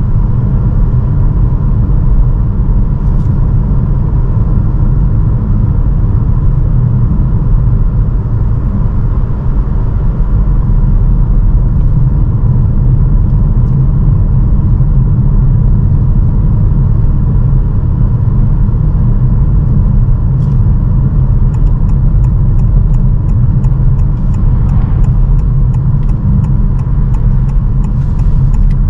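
Cabin noise of a 2022 Honda HR-V e:HEV hybrid driving on Goodyear UltraGrip Ice 2 winter tyres: a loud, steady low rumble of road and wind noise with a faint steady whine above it. A regular quick ticking, about three a second, joins about three-quarters of the way through.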